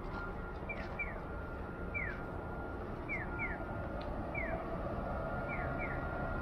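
Audible pedestrian-crossing signal giving bird-like "piyo" chirps: a short falling chirp about every second, pairs and singles alternating, over steady street noise and a faint steady tone.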